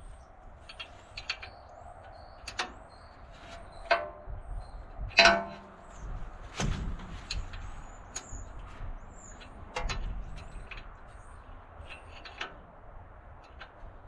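Scattered metallic clanks and knocks of hand tools, such as a wrench, on a tractor's seat and battery-box bolts, the loudest a little over five seconds in. Short, faint, high chirps come and go throughout.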